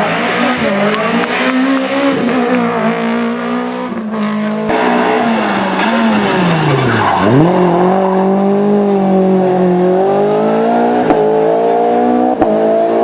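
Renault Clio Williams rally car's 2.0-litre sixteen-valve four-cylinder engine driven hard, its pitch rising and falling with the throttle and gear changes. About seven seconds in the revs drop sharply and climb back, then rise steadily through the rest.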